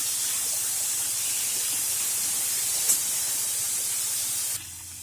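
Wet urad dal sizzling in hot oil in an iron kadhai as it is stirred with a slotted metal spatula: a steady hiss that cuts off suddenly near the end.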